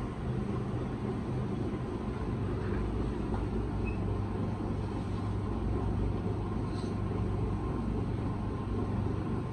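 Steady low mechanical hum and rumble, even throughout.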